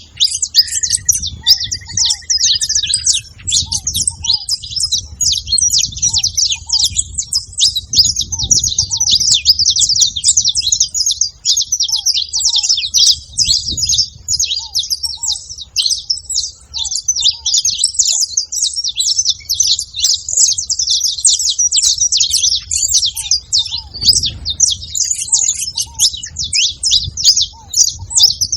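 Saffron finches chirping at a feeding spot: a dense, continuous chatter of short high notes from many birds at once, with a brief whistled note near the start.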